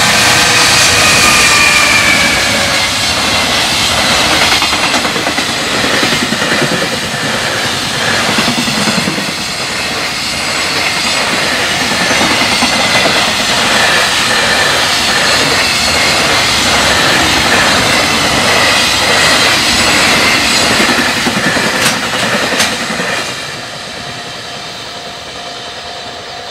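Long container freight train passing a level crossing at speed, its wagons clattering rhythmically over the rails. The noise drops suddenly about 23 seconds in as the last wagon goes by, leaving the crossing's warning bell ringing on its own.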